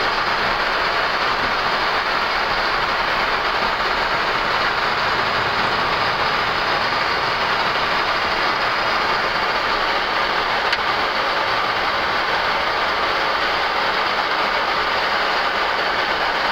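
Steady flight-deck noise of a Boeing 737 MAX taxiing onto the runway, with its CFM LEAP-1B engines at low taxi thrust: an even hiss with no distinct tones.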